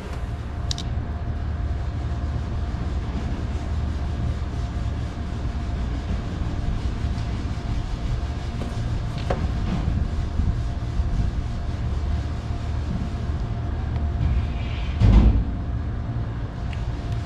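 Steady low machine hum with a faint constant whine over it. A single thump comes about fifteen seconds in.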